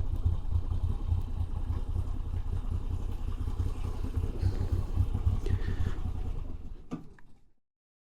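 Moto Guzzi V85 TT's air-cooled transverse V-twin running as the bike rides along, a steady low throb with an even pulse; it fades away near the end.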